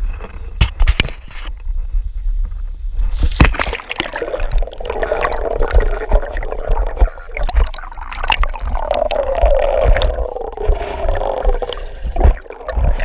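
Wind buffeting the microphone with a heavy rumble and a wavering howl, broken by scattered knocks and handling noise.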